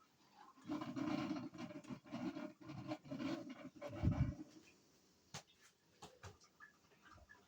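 A cat breathing hard close to the microphone in a run of quick rhythmic breaths for about four seconds, followed by a few light clicks.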